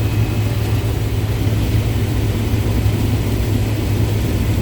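Tractor engine running steadily at constant speed, a low even hum with no change in pitch.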